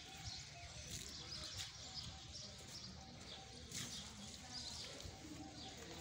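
Faint outdoor background with small birds chirping on and off.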